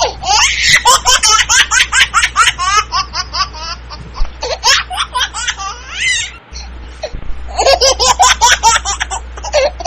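A baby laughing in high-pitched, rapid fits of giggles. There are two long bouts of laughter with a pause of about two seconds between them.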